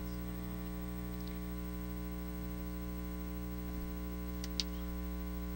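Steady electrical mains hum in the lecture's audio system, a buzz of many evenly spaced tones that does not change. A single short click about four and a half seconds in.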